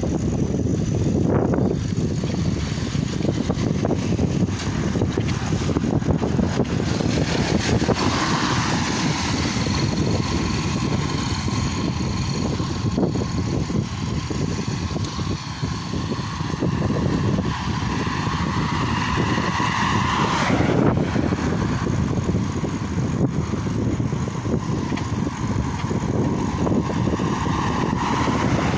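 Wind buffeting the microphone of a camera carried on a moving bicycle, a dense, steady low rumble. A steady high-pitched whine joins about eight seconds in, holds for some twelve seconds, and returns faintly near the end.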